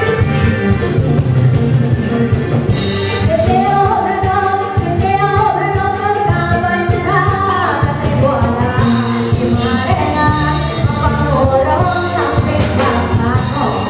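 A woman sings Isan luk thung into a microphone, backed by a live band with drum kit and a khaen (bamboo mouth organ), over a steady beat.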